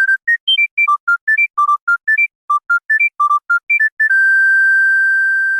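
Old monophonic mobile phone ringtone: a quick melody of short, single beeping notes, one at a time, ending about four seconds in on one long held note.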